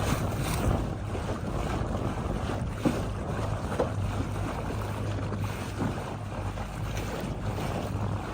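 Small boat's engine running steadily with a low hum, with wind buffeting the microphone.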